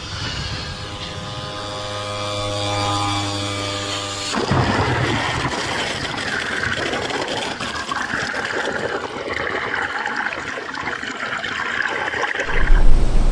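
A wave of water from a sideways ship launch rushes over and splashes against the microphone. The wave arrives suddenly about four seconds in and runs for about eight seconds. Before it, a steady pitched drone sounds.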